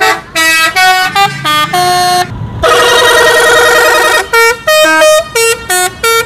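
Indonesian bus 'telolet' horn, a multi-tone musical air horn, playing a quick run of short notes at changing pitches. About two and a half seconds in it holds a wavering chord of several tones for about a second and a half, then goes back to short notes.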